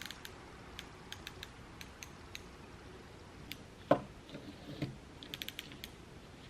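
Yankee No. 130A spiral ratchet screwdriver's mechanism clicking as it is worked, in scattered clicks and short quick runs, with one louder knock about four seconds in. The mechanism is dry and needs some lubrication.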